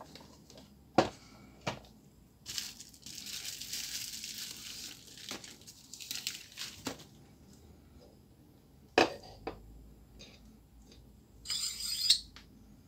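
Sharp plastic clicks and knocks as a laser-printer imaging drum unit is taken apart and its drums are handled and set down, with a few seconds of rustling in between and a short scraping rustle near the end.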